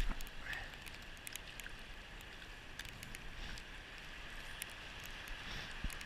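Casting a spinning rod: a brief thump at the start, then faint steady wind noise with scattered light ticks.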